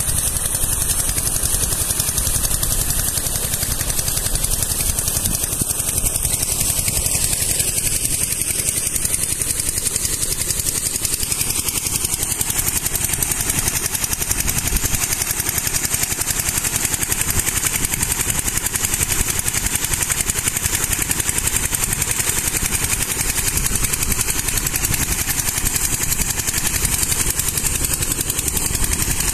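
Small stationary engine driving an irrigation water pump, running steadily, with water gushing from the outlet pipe and splashing into the pond channel.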